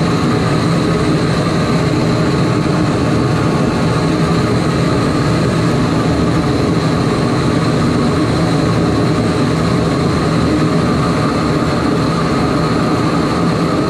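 Home-built combustor for a steam boiler firing steadily, its flame blasting against a steel plate with a loud, even rushing noise that does not change.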